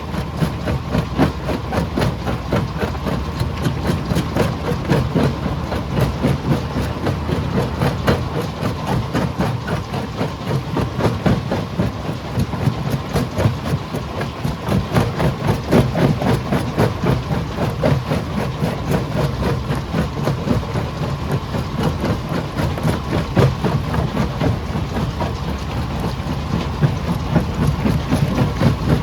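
Stone crusher machine running: a steady heavy engine drone under dense, rapid clattering and knocking of rock being crushed.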